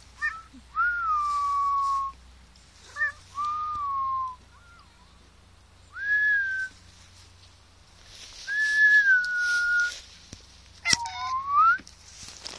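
A person whistling a series of about five short calls to a cat, spaced a second or two apart. Each note slides up and then eases down or holds level, and the last one rises. A sharp click comes just before the last whistle.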